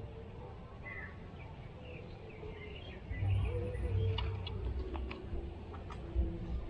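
Small birds chirping in short scattered calls over a steady low hum, with a few sharp clicks between about four and six seconds in.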